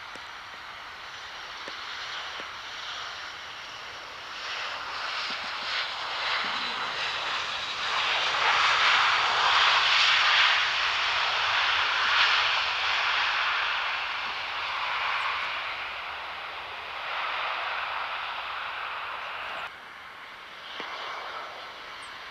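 Jet engines of a WestJet Boeing 737 landing and rolling out along the runway, building to a loud rush about eight to twelve seconds in and then fading. Near the end the sound cuts abruptly to a quieter jet rush from a United Airbus on final approach.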